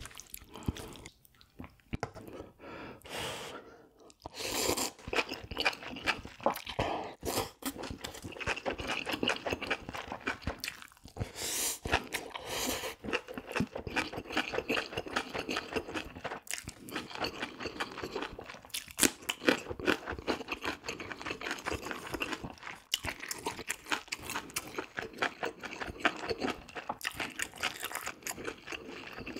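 Close-miked chewing and crunching of food in the mouth: dense, irregular wet crunches and clicks, sparse at first and continuous from about four seconds in.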